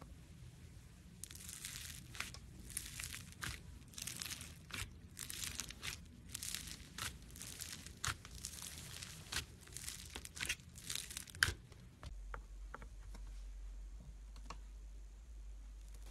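Foam slime being worked by hand, crackling and crinkling in repeated bursts about twice a second, with a sharp snap near the end of the run. About twelve seconds in the crackling gives way to a low steady hum with a few soft clicks.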